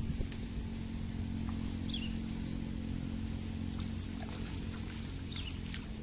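Steady low hum of a motor running, with two brief high chirps, one about two seconds in and one near the end.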